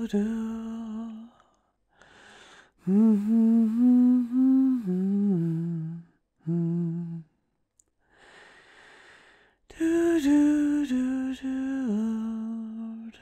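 A woman humming a slow lullaby tune in phrases of long held notes, with soft breaths between the phrases.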